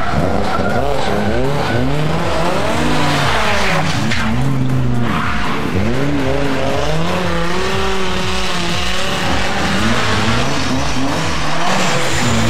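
Classic rally car's engine driven hard through a hairpin, its note rising and falling repeatedly as the revs climb and drop, with tyres scrubbing on the tarmac.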